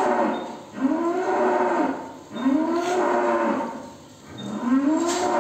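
Cow mooing again and again: about three long calls, one after another, each rising and then falling in pitch over about a second.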